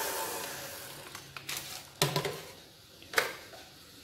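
Handheld electric mixer's whirring fading out as it winds down, then a few sharp clicks and two knocks as the beaters and stainless steel mixing bowl are handled.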